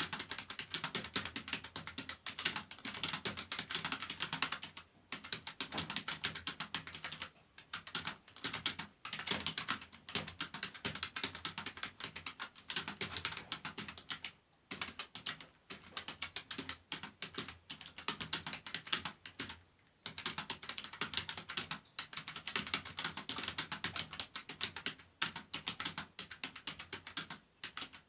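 Fast typing on a computer keyboard during a typing speed test: a rapid, continuous patter of key clicks, broken by a few brief pauses.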